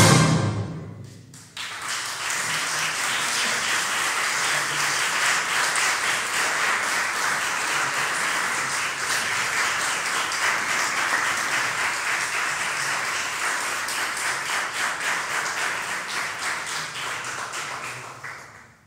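An orchestra's final chord dies away, then about a second and a half in an audience breaks into steady applause. The applause thins out and stops near the end.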